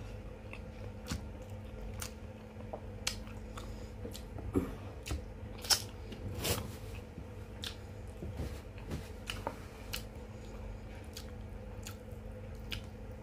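A person chewing and biting into chicken machboos with rice, close to the microphone, with irregular soft clicks from the mouth.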